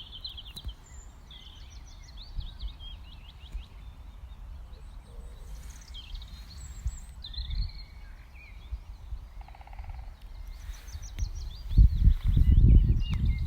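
Songbirds singing and calling in a spring park, with quick runs of repeated high notes from more than one bird. Near the end, a loud low rumble becomes the loudest sound.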